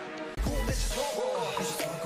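K-pop hip-hop stage-performance track: a deep bass beat comes in about half a second in, and vocals run over it from about a second in.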